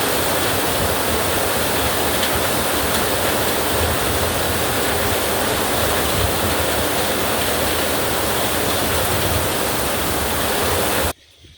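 Heavy rain falling steadily as a dense, even hiss, which cuts off abruptly near the end.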